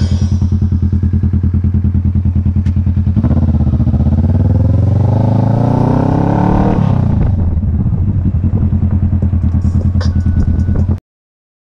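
Motorcycle engine running at low revs with an even pulsing beat, then accelerating from about three seconds in, its pitch climbing until about seven seconds before dropping back to a low, steady run. The sound cuts off abruptly near the end.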